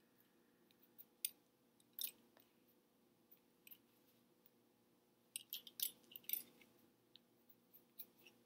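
Near silence over a faint steady hum, broken by scattered faint clicks and rustles from a person signing, with a quick cluster of them about five to six and a half seconds in.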